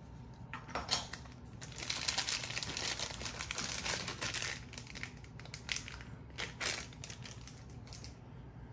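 Thin clear plastic bag crinkling in the hands as a folding knife is unwrapped from it, densest for a couple of seconds near the middle, with scattered sharper crackles before and after.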